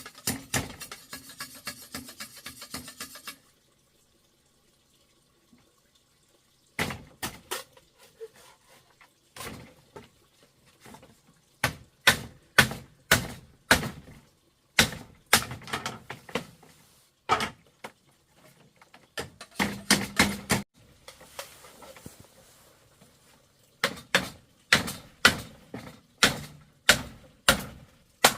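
Background music fades out at the start. After a few seconds of quiet, a long run of sharp, irregular knocks begins, about one or two a second.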